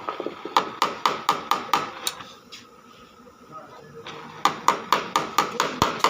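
Hammer tapping on car body sheet metal to work out a dent, each blow ringing briefly. There are two runs of quick, even taps, about four a second, with a pause of about two seconds between them.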